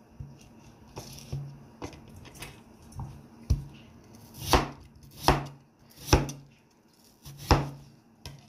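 Crinkle-cut wavy knife chopping through raw potato, then carrot, onto a wooden cutting board. About a dozen sharp knocks come unevenly spaced, the loudest in the second half.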